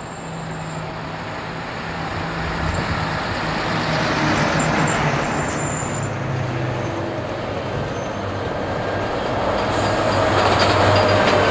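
Heavy army multi-axle truck's diesel engine running as it approaches, with tyre and road noise, getting steadily louder as it comes close.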